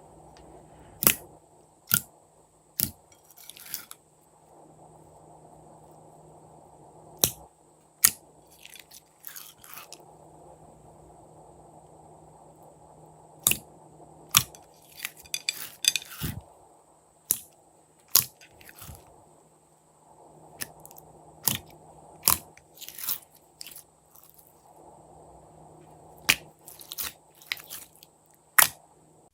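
Crisp snaps and crackly crunches from hands working slime and balloons, about twenty sharp ones spread unevenly, with short crackling runs around the middle and near the end, over a faint steady hum.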